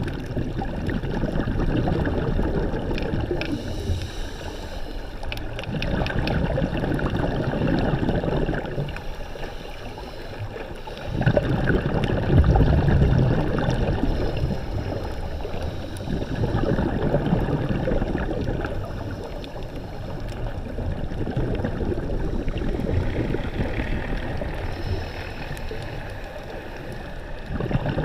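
Sea water sloshing and gurgling around the microphone, a dense wash that swells and eases every few seconds.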